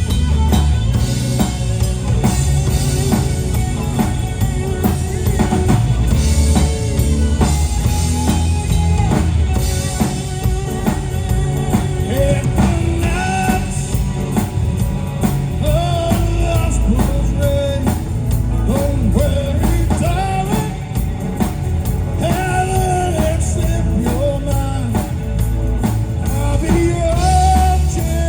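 A rock band playing a song, with a drum kit and heavy bass throughout. A wavering lead melody comes in about twelve seconds in and carries on over the band.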